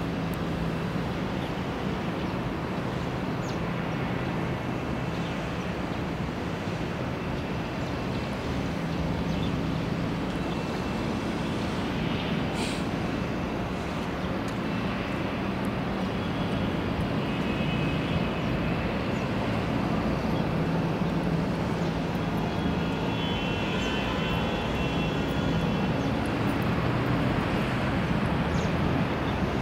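Steady outdoor city background hum of distant traffic and machinery, with a single brief click partway through.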